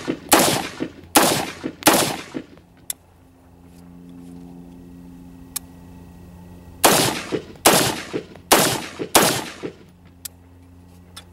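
AR-15 rifle with a Battle Comp muzzle brake fired semi-automatically in two strings of aimed shots, about three-quarters of a second apart. Three shots come at the start, then a pause of about four seconds, then four more, each shot ringing out briefly after it.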